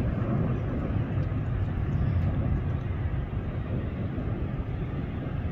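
Steady low rumble of a distant twin-engine jet airliner rolling out on the runway just after landing.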